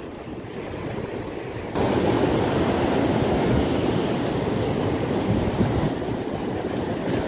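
Sea surf rushing, with wind. About two seconds in it cuts abruptly to a louder, steady rush of open sea water and wind.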